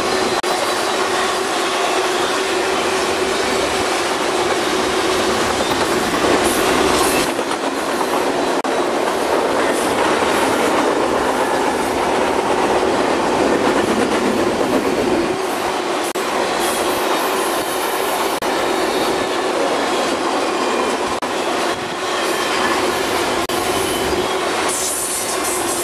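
Double-stack container freight cars rolling past on a curve, a steady rumble with wheels clacking over the rail joints and a faint high wheel squeal at times.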